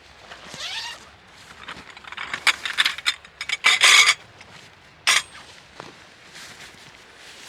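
Hard objects being handled: a run of small clicks and knocks about two seconds in, a short loud clatter around four seconds, and one more knock about five seconds in.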